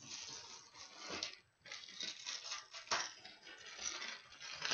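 Plastic packaging being torn open by hand and handled, with irregular rustling and crinkling and a sharp click about three seconds in.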